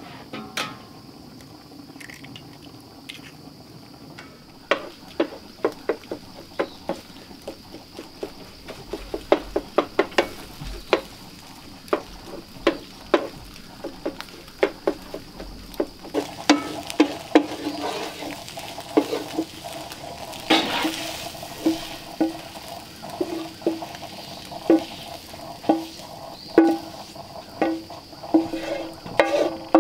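Utensil scraping and tapping against a skillet while eggs are scrambled, a quick run of clicks over a steady sizzle. In the second half each tap on the pan rings with a short metallic tone.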